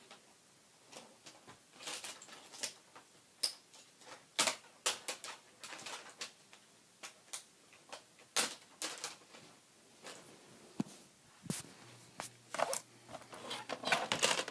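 Plastic laptop screen bezel being pried loose: irregular clicks and snaps as its retaining clips come free.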